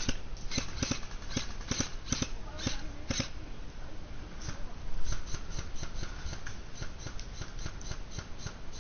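Crunching and rustling, likely footsteps and kit on rough ground. Irregular sharp crunches come first, then a quicker, fairly even run of about four to five steps a second from about halfway through.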